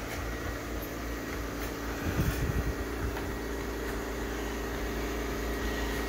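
LIGHT 'N' EASY robot vacuum cleaner running across a hardwood floor: a steady motor and fan hum with a few faint steady tones, and some brief low bumping about two seconds in.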